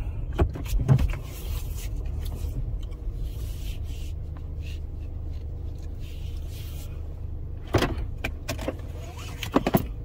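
Low steady rumble of a car's engine heard from inside the cabin, with a few sharp clicks and knocks near the start and a cluster of them near the end.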